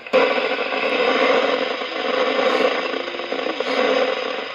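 27 MHz CB radio, an Amstrad CB 901, receiving only band noise between stations: a steady hiss of static from its speaker.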